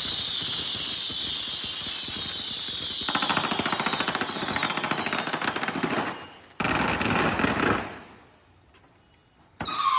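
A whistling firework shrieking at a steady high pitch, then from about three seconds in a fast string of firecracker bangs rattling densely. The firecrackers break off for an instant about six and a half seconds in, crackle again, and die away; a new whistle starts right at the end.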